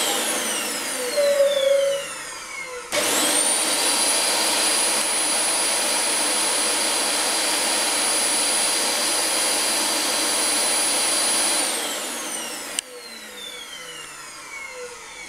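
Vacuum cleaner motor switched on and off: a short burst that winds down with a falling whine, then about three seconds in it starts again, its whine rising and holding steady for about nine seconds before it is switched off and the whine falls away as the motor winds down. A brief squeak sounds over the first wind-down.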